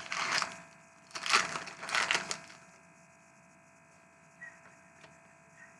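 Foil wrapper of a hockey card pack crinkling in three bursts over the first two and a half seconds, followed by a few faint clicks.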